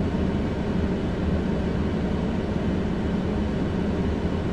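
Steady low rumble of a moving vehicle, engine and road noise together, holding an even level with a faint steady hum.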